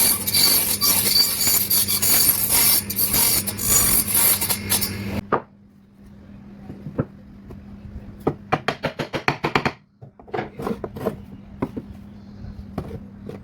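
Wood being scraped with an abrasive tool: about five seconds of loud, rough rasping strokes. Then a quieter stretch of light taps and knocks, with a fast run of clicks about nine seconds in, over a faint steady hum.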